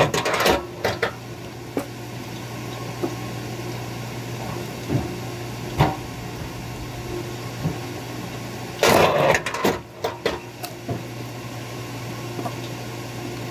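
K-10 log splitter's motor humming steadily while firewood is split. A loud split of wood near the start and another about nine seconds in, with lighter knocks of wood and the ram in between.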